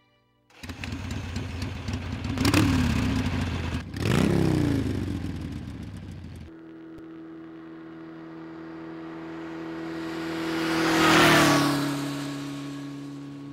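Motorcycle engines: a custom chopper's engine is revved twice, pitch climbing and falling back each time. After an abrupt cut, a motorcycle passes on a highway, growing louder to a peak about eleven seconds in, its pitch dropping as it goes by.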